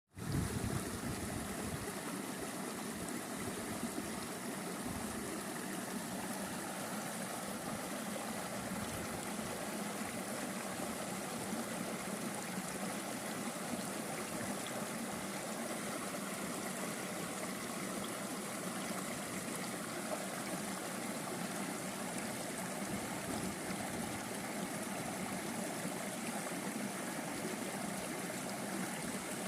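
Clear, shallow stream water babbling and trickling steadily.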